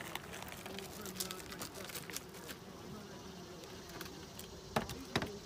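Honeybees buzzing around an open hive: a steady low hum. Two sharp knocks stand out near the end.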